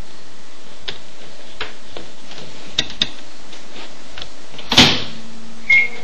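A microwave oven door shutting about three-quarters of the way in, then a short keypad beep near the end as the oven is set going. A few light handling clicks come before it, over a steady hiss.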